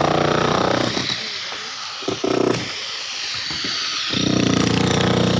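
A concrete-cutting power tool works in loud bursts: one at the start, a short one about two seconds in, and a longer one near the end, with quieter running between them.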